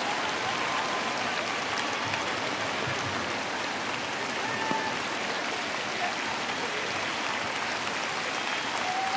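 Large arena crowd applauding after a figure-skating program: dense, even clapping that holds steady with no break.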